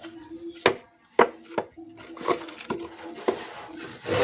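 Hand saw on wood: a few sharp knocks, then it starts cutting with short rasping strokes about halfway through, heavier near the end.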